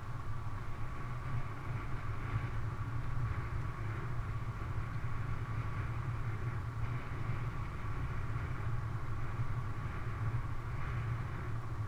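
Bicycle riding steadily along a paved asphalt path: an even rumble of tyres rolling and wind on the bike-mounted camera's microphone, with a faint steady high whine underneath.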